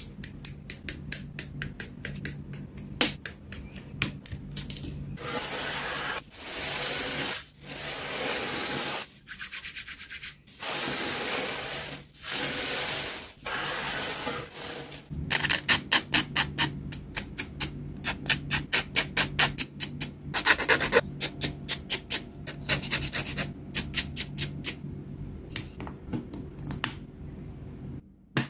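Plastic model-kit parts being clipped from the runner with hobby nippers: a quick run of sharp plastic snips. In the middle come several rubbing sounds of about a second each, as plastic parts are rubbed or slid across a wooden tabletop, and then rapid snipping again.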